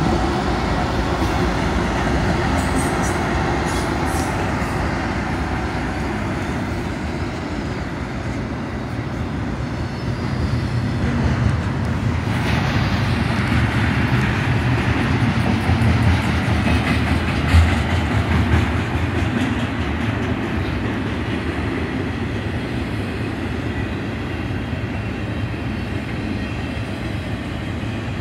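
Double-stack intermodal freight train passing close by. BNSF diesel locomotives go by at the start, followed by the steady rumble and rattle of container-laden well cars rolling over the rails, with one louder knock about two thirds of the way through.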